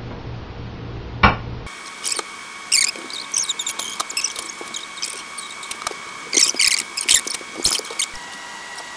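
A single click, then from about two seconds in a run of quick high-pitched squeaks and chirps over a steady high whine, starting abruptly.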